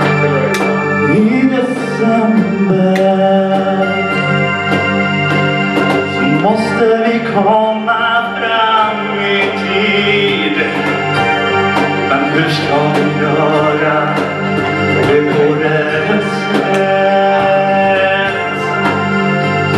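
Live band playing a 1980s-style pop song: a singer on a microphone over held electronic-organ keyboard chords and a steady drum beat.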